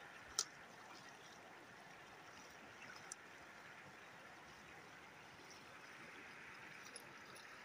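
Faint, steady rush of water from a shallow, stony stream and the low weir spilling into it. A single sharp click sounds about half a second in.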